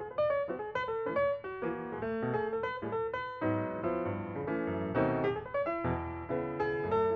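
Background piano music: a quick melody of short notes over chords.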